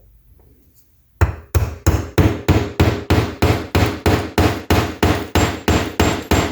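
Steady hammer blows, about three a second, starting about a second in, each with a short metallic ring.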